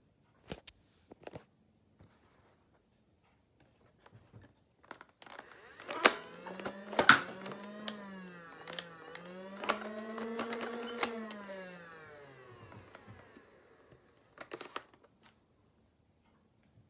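Nerf blaster's small electric motor whining up and winding down twice, its pitch rising and falling over about eight seconds, starting about five seconds in. Several sharp plastic clicks go with it, the loudest early in the run.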